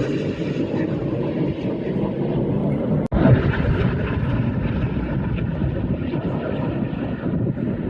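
Aircraft engine noise from a display aircraft overhead: a loud, steady rumble, broken by a sudden cut about three seconds in.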